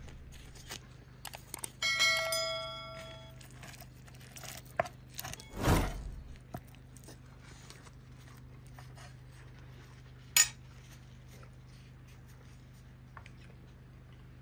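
Dishes being handled: about two seconds in, a dish is struck and rings with a clear, bell-like tone for about a second and a half. A dull knock follows near six seconds and a single sharp click near ten seconds.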